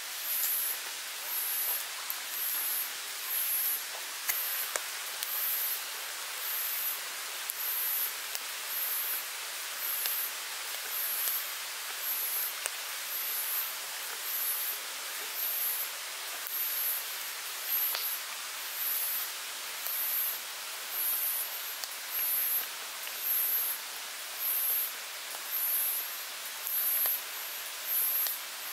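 An insect calling outdoors in very high-pitched pulses, about one a second and evenly spaced, over a steady hiss of background noise.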